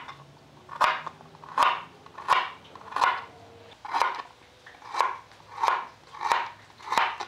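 Kitchen knife slicing a raw carrot into thin rounds on a wooden cutting board: a steady run of about ten cuts, each a short crisp crunch with a knock on the board, roughly one every three-quarters of a second.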